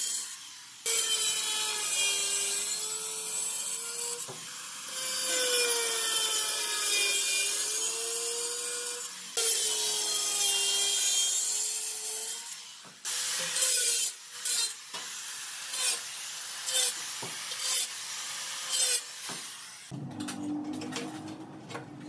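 Handheld electric tile cutter with a diamond blade cutting through a ceramic floor tile: the motor whines under load with a gritty cutting noise in several long passes, then a run of short bursts in the second half as the corners of a square notch are finished.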